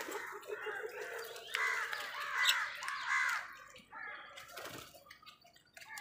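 A flock of house crows cawing, many calls overlapping, busiest and loudest in the middle.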